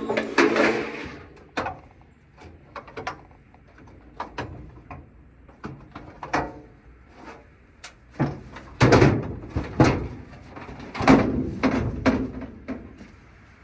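Sheet-metal dryer panels and parts being handled during a teardown: scattered clicks and knocks, with two louder stretches of clanking and rattling about nine and eleven seconds in.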